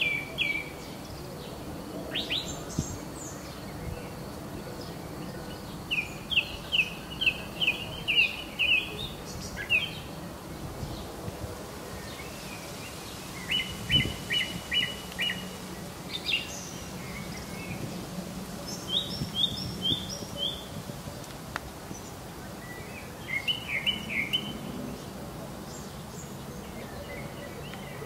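Wild songbirds singing: short phrases of quick repeated high notes every few seconds, over a steady outdoor background hiss.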